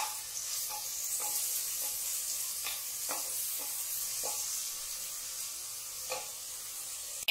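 Chopped onions sizzling in hot oil in a metal pressure cooker, stirred with a wooden spatula that scrapes the pot now and then.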